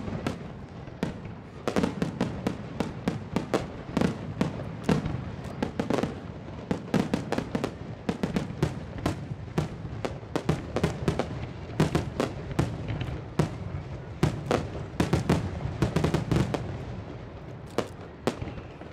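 Aerial fireworks shells bursting in a rapid barrage, several sharp bangs a second overlapping one another over a low rumble, the dense firing of a display's finale.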